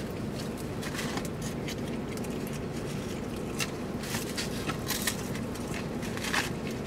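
People chewing and handling fried food, with scattered crunches and rustles, more of them in the second half, over a steady low hum inside a car.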